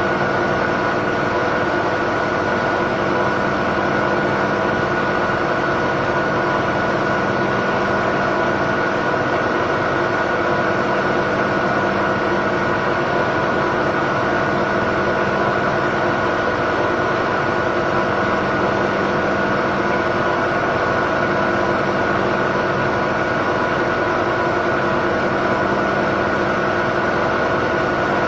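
Miele W1 Classic washing machine spinning at a steady speed, its motor whining at a constant pitch over a steady mechanical noise. The drum's suspension springs and dampers rattle, a noise the owner gets even with a small load and that Miele's service calls normal.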